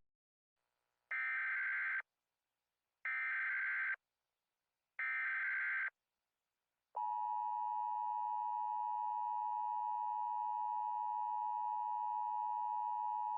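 Emergency Alert System SAME header: three bursts of data tones, each about a second long and a second apart. At about seven seconds in comes the long, steady two-tone EAS attention signal.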